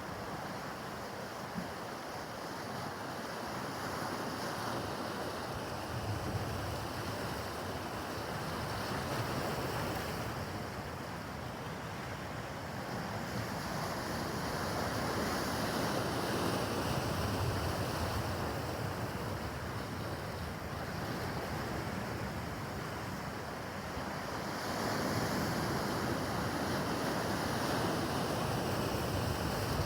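Rough harbour water and wind buffeting the microphone: a steady wash of waves that swells and eases every several seconds.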